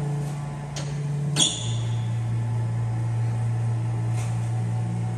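Steady electric hum of a Redco welding positioner's power drive running, broken about a second and a half in by a sharp metallic click, after which the hum drops slightly in pitch; a couple of fainter clicks come later.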